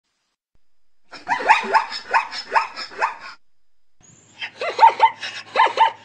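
Zebra calling with a run of quick, bark-like calls, about two or three a second, each rising in pitch. The calls come in two bouts about a second apart.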